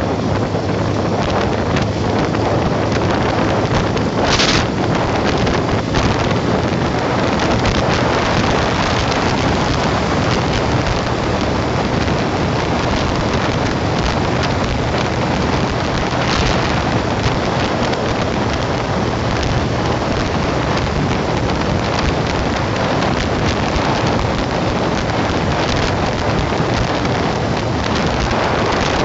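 Wind rushing over the microphone of a motorcycle riding at highway speed: a loud, steady noise, with the bike's engine hum low beneath it and a couple of brief, sharper gusts.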